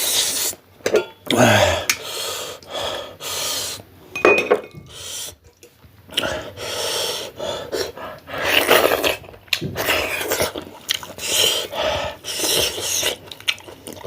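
A person eating maize dhido and chicken curry close to the microphone: chewing and mouth sounds mixed with clinks of a plate or bowl, in a quick, irregular run of short bursts.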